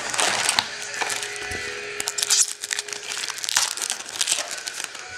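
Foil wrapper of a Topps Chrome baseball card pack being torn open and crinkled by hand, an irregular run of crackly rustles.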